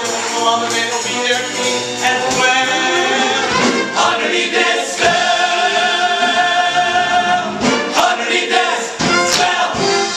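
Male chorus singing the closing bars of a stage musical number over band accompaniment, holding one long chord about halfway through, then a few sharp accent hits at the finish.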